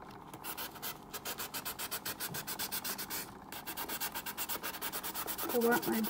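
Sanding sponge rubbed in quick back-and-forth strokes over a glittered ceramic mug coated with Crystalac Brite Tone, scuffing the cured coat before the next layer. The strokes break off briefly about a second in and again past three seconds.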